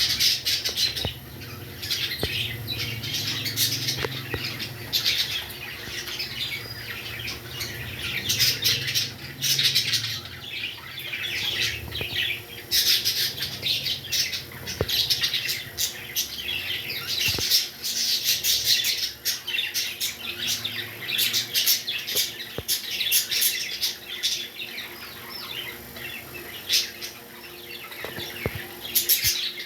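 Pet parrots chattering and chirping, a dense run of short, high calls with brief lulls.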